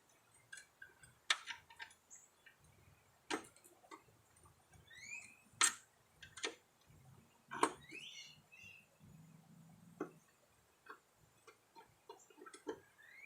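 Hand tools clicking and knocking on a steel mower deck while a spindle is fitted: scattered sharp metallic clicks and clinks, a few louder knocks among them.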